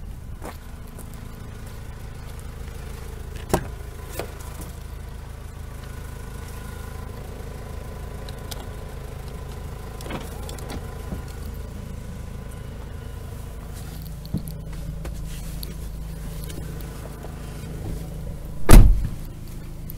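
Opel Vivaro's 1.9 CDTi diesel engine idling steadily, with a few sharp clicks along the way. Near the end comes one loud thump, like a door shutting.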